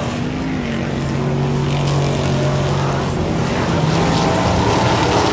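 Off-road race truck engine running hard at high revs, a steady note that shifts pitch a little about three seconds in.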